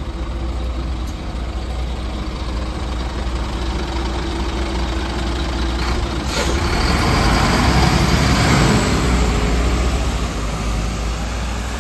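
Solaris Urbino III city bus running at a stop with a steady engine rumble. About six seconds in there is a sharp report, then a loud swell of hissing and engine noise as the bus pulls away, easing off near the end.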